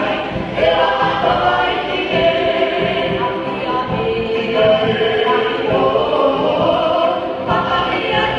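Music: a group of voices singing a Tahitian dance song together, a steady sung melody with no break.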